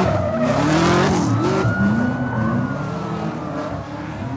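Jeep engine revving hard, its pitch rising and falling, as it spins donuts on pavement with tire noise and a long, drawn-out tire squeal.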